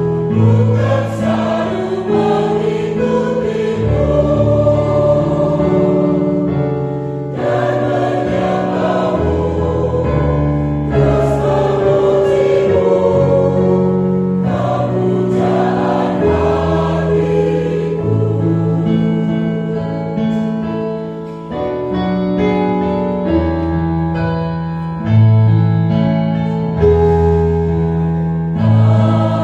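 Mixed church choir of women's and men's voices singing a hymn of praise in parts, holding sustained chords that move from note to note.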